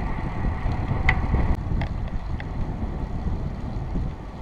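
Wind rushing over the microphone of a camera on a moving bicycle, a steady low rumble that eases a little near the end. About a second in come a few short high chirps.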